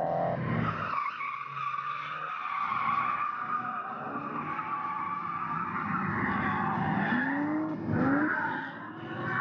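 Drift cars sliding through a corner, tyres squealing continuously while engines run under throttle. Twice near the end, an engine's pitch rises as it revs up.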